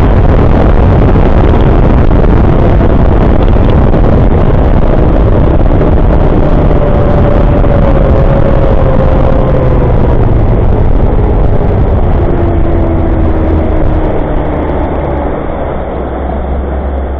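Bass boat running fast, with heavy wind and water rush over the bow and the outboard's note faint beneath it. The engine note falls and the noise eases near the end as the boat slows.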